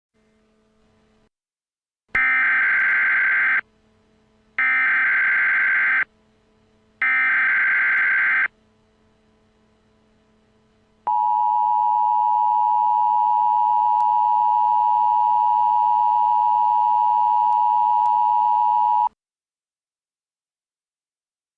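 Imitation Emergency Alert System sequence: three screeching data bursts, each about a second and a half long, then a steady two-tone attention signal held for about eight seconds that cuts off suddenly.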